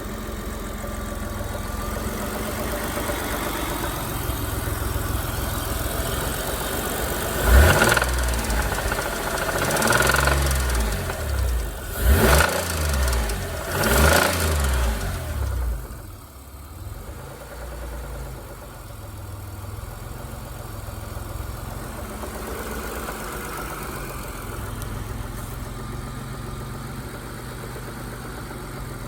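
Mitsubishi GTO's 3.0-litre V6 idling with rod knock, then revved four times in quick blips about a third of the way in before settling back to a steady idle. The knocking is the sign of a worn connecting-rod bearing.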